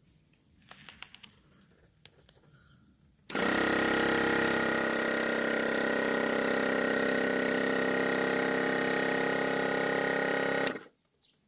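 Small electric air compressor on a motorcycle switched on and running steadily with a hum for about seven seconds while it builds pressure, then cutting off suddenly near the end.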